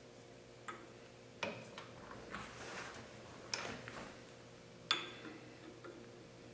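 A small metal engine cylinder block knocked and slid against a turned piston held in a lathe chuck as it is tried for fit: four light metal clicks with some scraping between them, the loudest near the end, and the piston still too large to go into the bore. A faint steady hum runs underneath.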